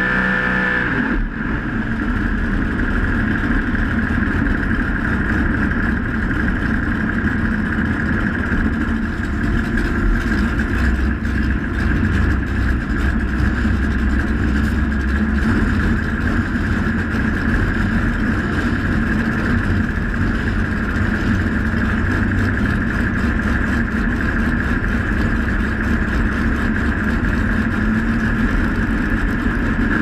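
Big-tire drag car's twin-carburetor race engine idling loud and steady, heard from right above the engine; a short break about a second in, then a rough, unchanging idle.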